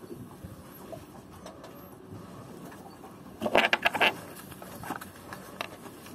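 Handling noise as a spark plug and socket are picked up and handled: about three and a half seconds in, a quick clatter of a dozen or so sharp clicks and rattles lasting half a second, with a few single clicks before and after.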